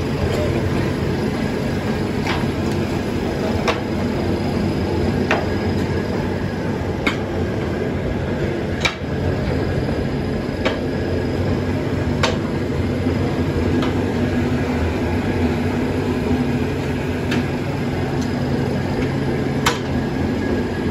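Steady running noise of a bagasse (sugarcane waste) dryer's electric motor and conveyor, with a constant low hum. A sharp tick repeats about every one and a half to two seconds.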